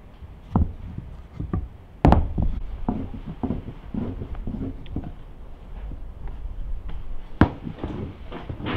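Wooden rolling pin rolling and knocking on a wooden board as dough is rolled thin, with irregular taps and knocks; the sharpest come about two seconds in and again about seven and a half seconds in.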